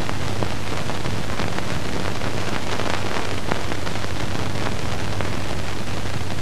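Steady hiss from an old film soundtrack, with a low hum and scattered faint crackles.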